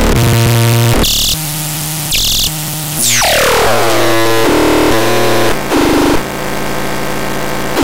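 Vapetron LS3 electronic sound generator playing synthesized tones that jump from pitch to pitch, with harsh hissing bursts about one and two seconds in. About three seconds in comes a steep falling sweep, and then more stepped buzzy tones follow.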